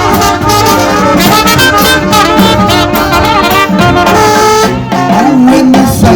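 Jazz brass band playing a lively tune: trumpet and trombone lines over drum strikes.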